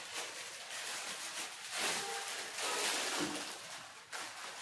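Clear plastic wrapping crinkling and rustling in irregular bursts as a folded light stand is pulled out of its plastic bag.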